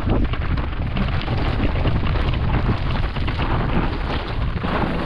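Wind rumbling on the microphone while a mountain bike is ridden fast over a dirt trail, with a steady run of quick rattling knocks from the bike over the rough ground.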